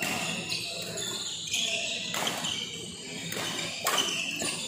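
Badminton rackets striking a shuttlecock in a rally: three sharp hits, the first about two seconds in and two more near the end, over a murmur of voices in a hall.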